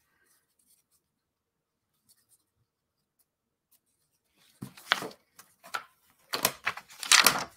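Thin wooden puzzle pieces scraping and rubbing against each other and against their wooden sheet as they are handled, in several irregular bursts starting a little past halfway, with a few sharp clicks among them.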